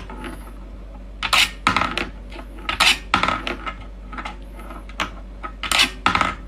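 Irregular clinking and clattering of small hard objects, like dishes or metalware being handled, over a steady low hum.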